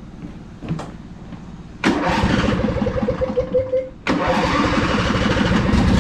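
Riding lawn mower's replacement engine being started: the starter cranks with a wavering whine for about two seconds, then the engine catches about four seconds in and runs steadily.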